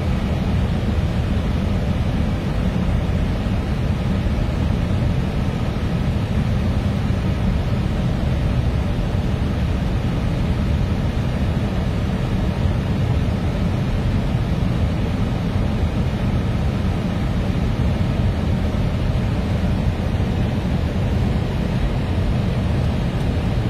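Steady low rush of airflow and engine noise inside an Airbus A321neo's cockpit on final approach.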